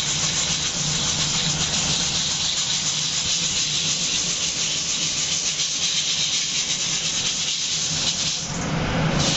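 Hot sand and coarse salt sifting through a perforated steel colander as roasted chickpeas are shaken in it, a steady rattling hiss of grains pouring onto the pan below. The hiss changes character near the end as the colander is lifted away.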